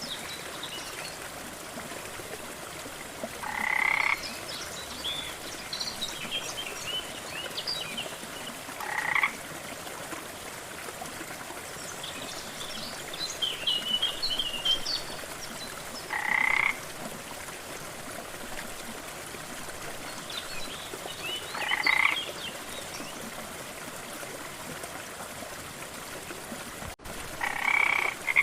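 A frog croaking five times, each call a short rasping croak under a second long, repeated about every five or six seconds, over a steady rush of water from a waterfall. Fainter high chirps twitter between the croaks.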